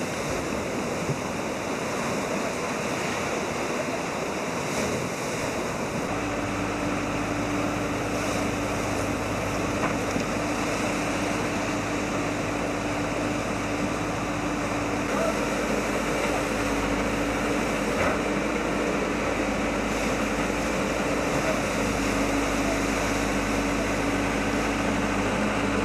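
Muddy floodwater rushing fast along a concrete channel, a steady noisy rush. From about six seconds in, a Hidromek backhoe loader's diesel engine runs with a steady low hum underneath as its bucket scoops mud out of the flooded channel.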